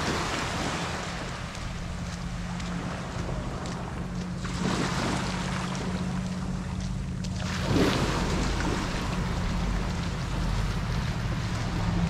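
Small Gulf of Mexico waves breaking and washing up the beach in surges, the biggest wash about halfway through and another a little later, over a steady low hum.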